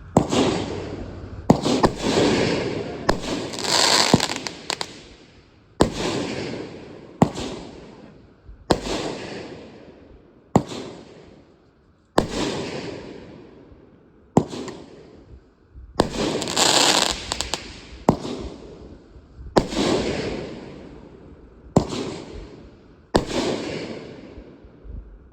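Consumer aerial fireworks going off one after another, a sharp bang about every one to two seconds, each trailed by a crackling hiss that fades out.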